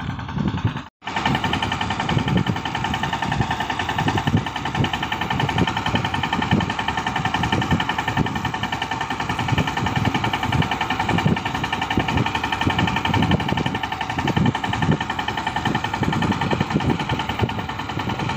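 Small diesel tractor engine running steadily under load while pulling a tined cultivator through the soil, with a rapid, even knocking from its firing. It cuts in after a brief gap about a second in.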